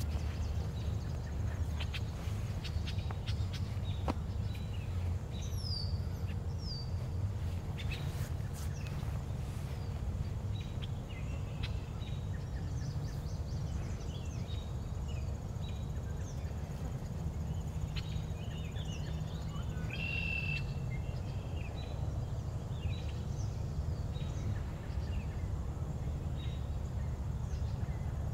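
Outdoor background: a steady low rumble with scattered bird chirps over it, including two quick falling chirps about five seconds in and a short call about twenty seconds in.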